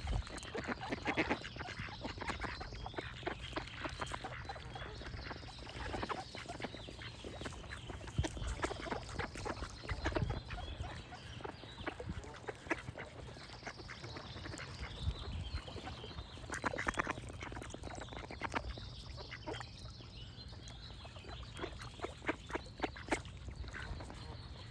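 Ducks quacking in runs of rapid quacks, with birds singing in the background.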